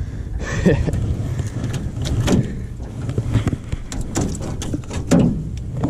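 A loose smallmouth bass flopping on the boat floor as it is grabbed: irregular thumps and slaps, a dozen or so scattered through, with clothing rubbing against the microphone.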